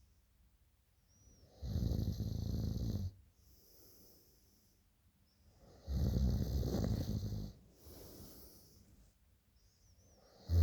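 A person snoring in deep sleep. Two loud snores about four seconds apart, each lasting about a second and a half, with a softer breath out after each; a third snore begins right at the end.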